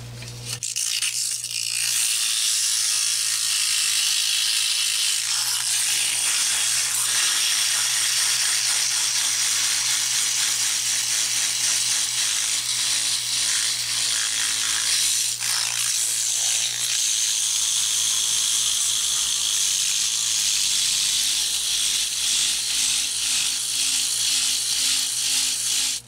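Sandpaper rubbing back and forth on the small electric fan motor's metal shaft to smooth down a jagged spot: a scratchy hiss that rises and falls with the strokes, over a steady low hum.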